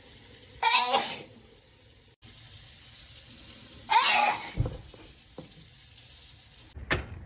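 A person sneezing twice, about a second in and again about four seconds in, each a loud pitched "achoo" with a hissy onset, as part of a sneezing fit; a short sharp sound follows just before the end.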